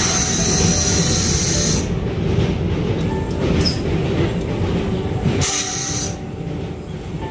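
Vande Bharat Express running over a steel truss bridge, heard from inside the coach: a steady rumble of wheels on the rails. A high hiss sits over it for the first two seconds and returns briefly near the end.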